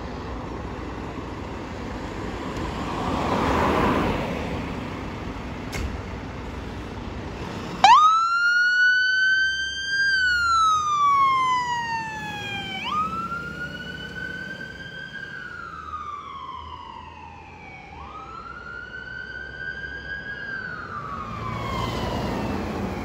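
A vehicle passes on the road, then about a third of the way in a fire engine's siren switches on. It wails in a slow up-and-down cycle, rising quickly, holding, then falling, about every five seconds. The siren is loudest at its start and runs through three cycles.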